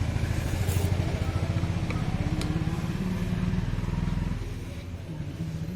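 Single-cylinder engine of a Hero Super Splendor motorcycle running with a fast, even beat, louder for about the first four seconds, then easing back.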